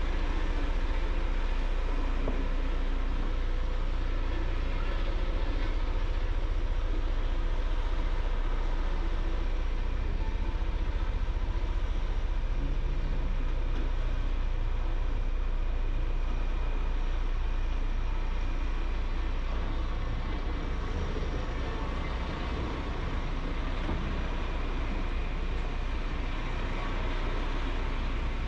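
Heavy construction machinery running steadily: a deep, continuous engine rumble with a faint steady whine above it, dipping slightly in level a little past two-thirds of the way through.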